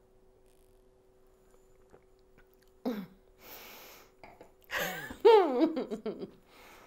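A woman's wordless sounds of enjoyment on tasting a cocktail: a short hum, a breathy exhale, then a long, wavering 'mmm' that slides up and down in pitch.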